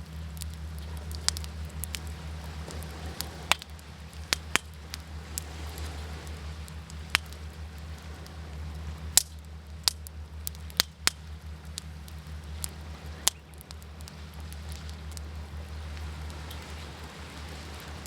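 Wood campfire crackling, with about a dozen sharp pops scattered irregularly, over a steady low rush of waves.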